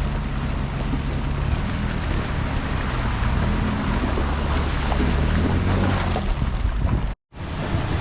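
An off-road truck's engine runs steadily under a loud, even rushing noise as it drives the trail. The sound swells a little midway, then cuts out for an instant near the end.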